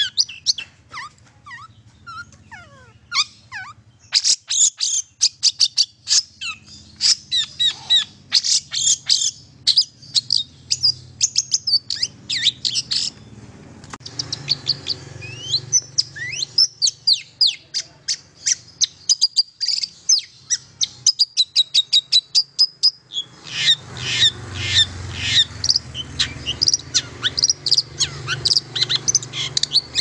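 Long-tailed shrike (cendet) singing a fast, varied run of sharp chirps and trills, thinning out briefly a couple of times and densest near the end.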